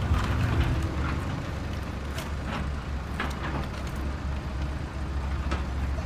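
Plastic Bruder toy trucks handled and pushed along, with a few short clicks and knocks, over a low steady rumble.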